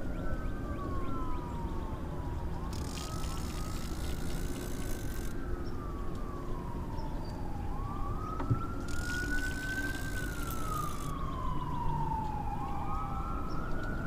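Emergency vehicle siren in wail mode, rising and falling slowly with several seconds per sweep, over a steady low rumble.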